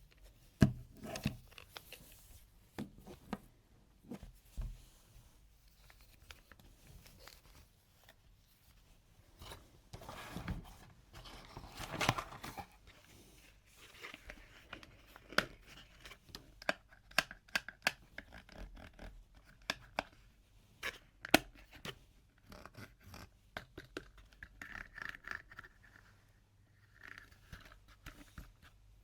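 Hands opening toy packaging: scattered sharp clicks and taps of plastic and cardboard being handled, with a longer stretch of rustling about ten to twelve seconds in.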